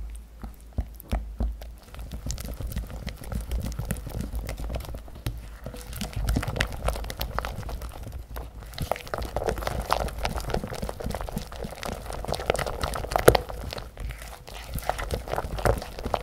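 Silicone-coated balloon whisk beating egg yolk and strawberry syrup into creamed butter and sugar in a glass bowl. A steady wet squelching and swishing, with irregular light taps of the whisk against the glass; one sharper tap comes about three-quarters of the way through.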